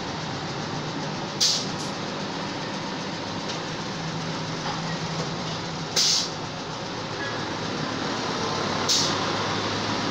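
Pneumatic liquid-filling machine running with a steady hum. A short hiss of venting air from its valve comes three times, a few seconds apart, with the bottle-by-bottle fill cycles.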